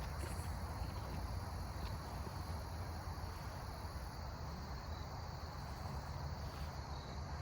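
Steady high-pitched chirring of crickets and other insects, with a constant low rumble underneath.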